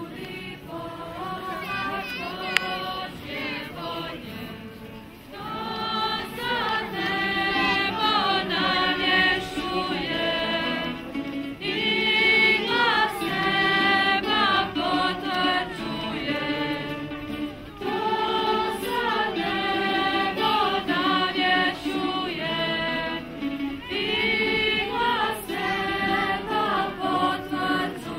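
A choir of mixed young voices singing, softer for the first few seconds and then fuller and louder from about five seconds in.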